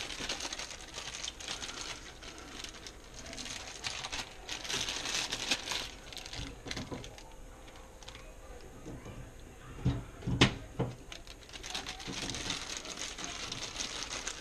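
Clear plastic bags crinkling and rustling as they are handled, with small clicks and taps of new stove knobs being fitted onto the valve stems; a couple of louder knocks about ten seconds in.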